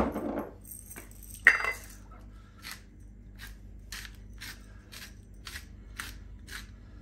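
Two sharp knocks in the first two seconds, the second the louder. Then a hand-twisted sea salt grinder crunching over the chicken in short, even strokes, about two a second.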